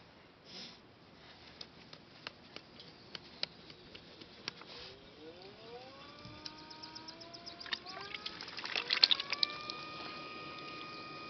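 Pottery wheel's motor whining, rising in pitch in a few steps as the wheel is sped up, then holding a steady tone near the end. Scattered light clicks and taps from hands working wet clay come before and under it.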